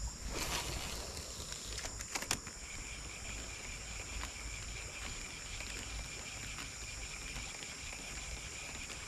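A spinning rod casting a lure: a brief swish just after the start, then a couple of sharp clicks about two seconds in as the reel is engaged for the retrieve. Insects keep up a steady high-pitched trill throughout, and a second steady high tone joins about two and a half seconds in.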